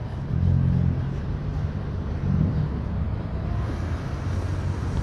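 City street traffic: a car engine running close by, a low steady hum with road noise around it.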